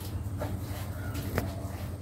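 Cow dung being cleared out of a cattle shed: two short scrapes or knocks, about half a second in and again near the middle, over a low steady rumble.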